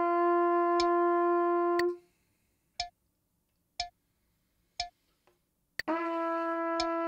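Trumpet holding one long, steady mid-range tone in a slow buzzing warm-up. The note stops about two seconds in and comes back about six seconds in, while a metronome clicks once a second throughout.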